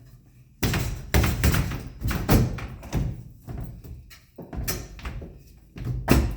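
Irregular knocks and thunks of parts being handled and fitted back into an air-conditioning unit, with several loud hits about a second and two seconds in.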